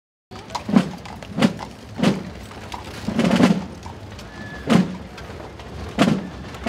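A series of deep, heavy thumps, most about two-thirds of a second apart, with a longer rumbling hit a little past three seconds in.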